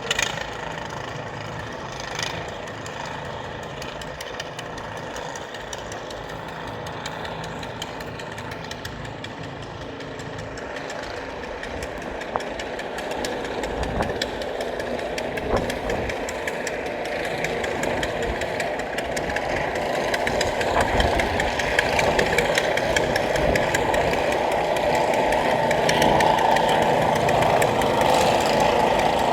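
An engine running steadily, getting louder over the last ten seconds or so, with a few brief knocks.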